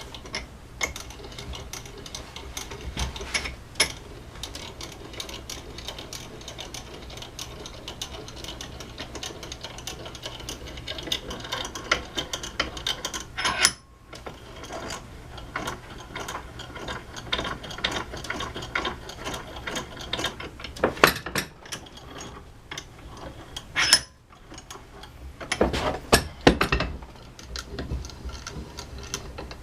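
Metal hand tools being worked: a rapid run of small metallic clicks and ratcheting, with a few louder knocks.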